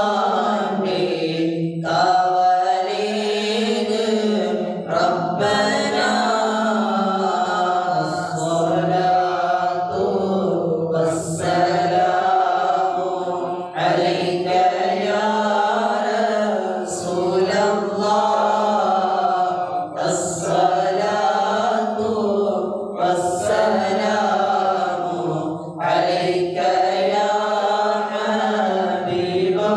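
Men chanting a mawlid, a devotional Arabic recitation in praise of the Prophet, amplified through a handheld microphone. The chant moves in long wavering melodic phrases with short pauses for breath every few seconds.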